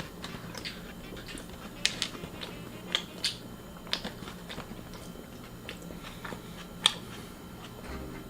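Close-up chewing of a soft McRib sandwich: wet mouth clicks and smacks at irregular intervals, one sharper smack about seven seconds in.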